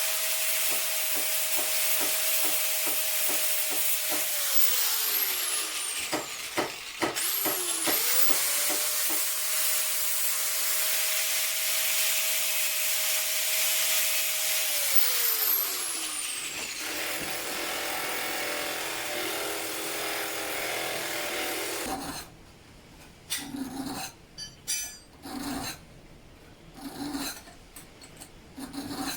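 An electric grinder cutting into a steel hinge: a loud grinding hiss over a steady motor whine, which winds down as the trigger is released about five seconds in, starts up again and runs until it winds down again near the fifteen-second mark. After that comes quieter handling, and near the end a few light metal clinks and taps.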